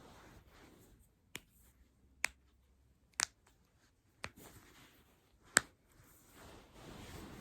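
Joints being cracked by hand: five sharp pops roughly a second apart, the loudest late on, with soft rustling of hands handling the body at the start and near the end.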